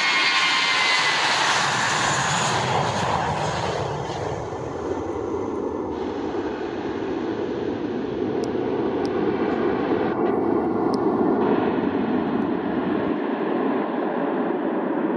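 Airbus A320-232's IAE V2500 turbofan engines at takeoff power as the jet passes and climbs away. A high whine falls in pitch over the first few seconds as it goes by, then gives way to a steady deep roar.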